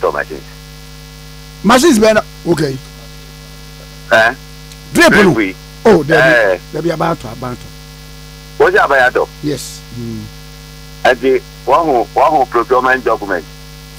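Steady electrical mains hum running under speech that comes in short bursts with gaps between them.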